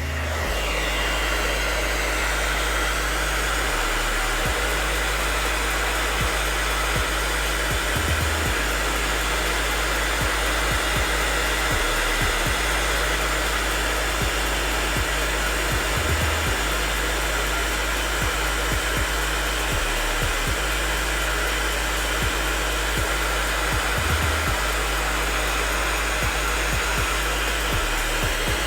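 Hair dryer blowing steadily, switched on right at the start, heating a rubber grip wrap to set it onto a pistol frame.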